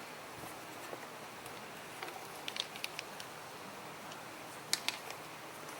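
A few light clicks and taps of small parts and tools being handled, a cluster about two seconds in and two sharper ones near the end, over a faint steady hiss.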